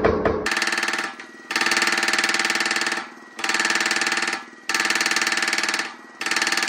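Power hammer working hot steel in runs of very rapid blows that blur together, each run about a second and a half long with a short pause between runs.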